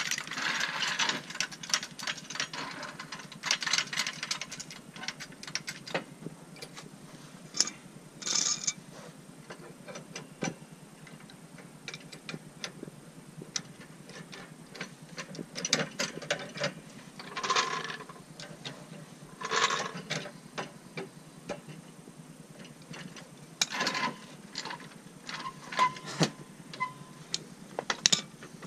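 Irregular metal clicks, clanks and short scraping bursts, some with a brief ringing note, from working a floor jack that is stuck under the lowered front of the car to get it free.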